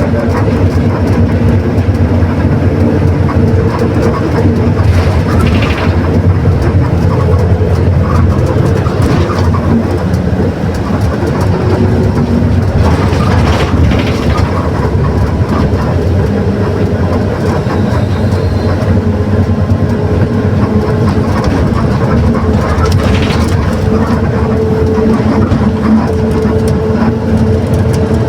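Mercedes-Benz OF 1721 BlueTec 6 city bus under way: the diesel drivetrain runs with a steady whine over a low rumble, from a growling differential. There are a few short rattles from the bus.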